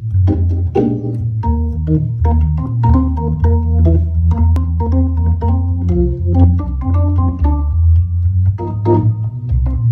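Hammond organ played with both hands on its two manuals: sustained chords that change every half second or so over a heavy bass, with a short click at the start of many notes.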